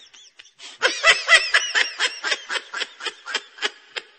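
A person laughing in a long, quick run of high-pitched 'ha' pulses, starting just under a second in and fading toward the end.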